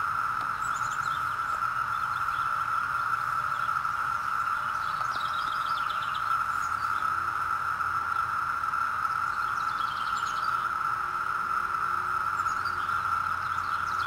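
Chorus of 17-year periodical cicadas of the Northern Illinois brood (Brood XIII), a steady, shrill drone, with a few short high bird chirps over it.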